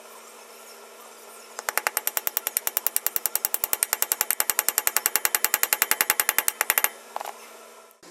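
Rapid, even rattle of a power tool at about ten clicks a second, working the cam sprocket bolt through a long socket extension. It starts a couple of seconds in and stops about a second before the end.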